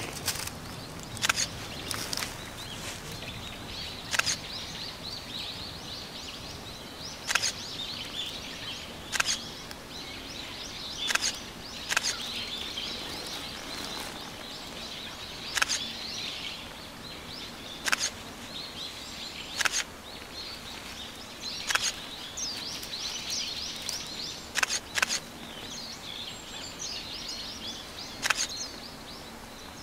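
Birds chirping in a wooded gorge, with a sharp click every two to three seconds and a faint steady low hum that becomes clearer in the second half.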